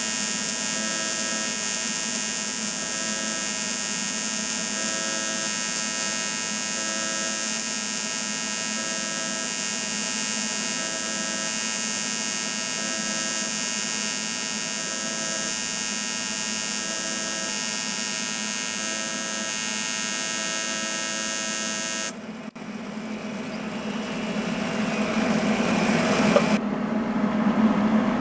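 TIG welding arc buzzing steadily with a faint pulsing about once a second, cutting off abruptly about three-quarters of the way through. A louder, uneven noise then rises toward the end.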